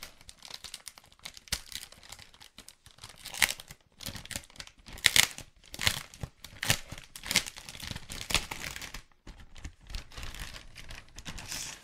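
Silver foil pouch being pulled and torn open by hand: irregular crinkling and crackling with short tearing bursts, loudest in the middle.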